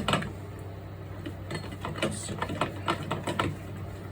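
Irregular small clicks and knocks from a disassembled box-fan motor's parts being handled, over a steady low hum.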